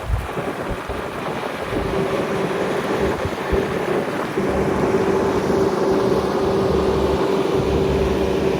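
Bobcat S650 skid steer's diesel engine running, picking up speed about halfway in and then holding steady, with wind buffeting the microphone.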